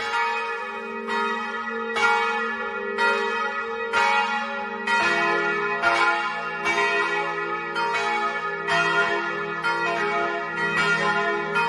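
Church bells pealing: a steady run of strikes, about two a second, each ringing on over a long low hum. A deeper bell joins the peal about five seconds in.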